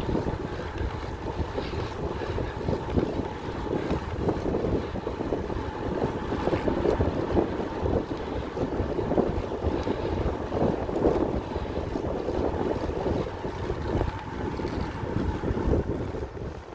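Wind rushing over the microphone on a moving road bike, an uneven rumble that swells and dips.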